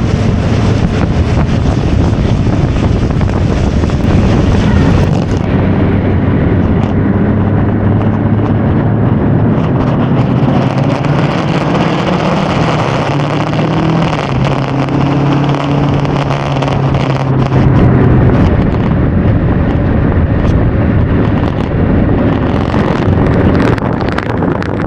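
Kawasaki Versys motorcycle engine running at road speed under heavy wind noise on the microphone, its note shifting up and back down around the middle.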